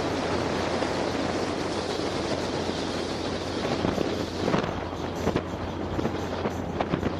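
Wind rushing across the camera microphone of an open Polaris Slingshot on the move, over a steady low drone from the vehicle. About halfway through, the wind breaks into rapid, irregular buffeting.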